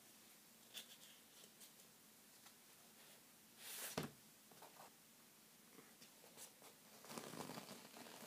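Faint sounds of masking tape being peeled off a painted canvas: small clicks, a short rasp about four seconds in, and a longer rasp near the end.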